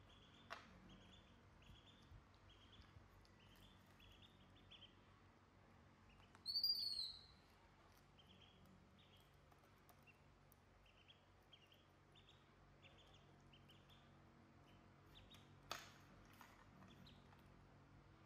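Ducklings peeping: faint short peeps repeating irregularly, with one louder, arching peep about seven seconds in. Two soft clicks, one near the start and one near the end.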